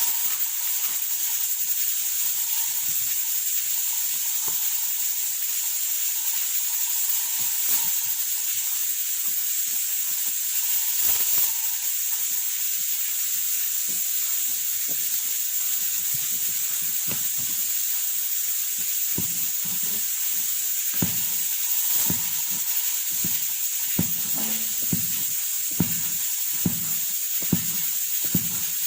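Steady sizzling hiss of food cooking in a pan. In the last third, a utensil knocks against the pan about once a second as the food is stirred.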